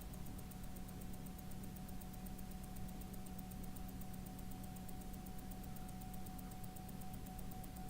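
Rolex calibre 3135 automatic watch movement ticking close up: fast, even ticks at its 28,800 beats per hour, eight a second, over a faint steady hum.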